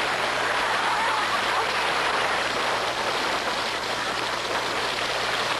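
Water pouring down in a steady, loud rush onto a person, as the show's water dump is set off by someone saying "water".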